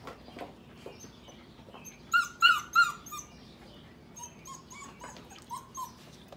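Sheepadoodle puppies yipping and whining: three sharp, high-pitched yips about two seconds in, then a string of shorter, softer whines, with faint clicks and scratches of paws on the pen's wooden board.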